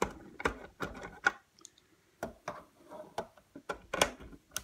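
Irregular sharp clicks and taps, about a dozen, from a hand Torx screwdriver working on a fan heater's plastic casing. The loudest come about a second in and near the end.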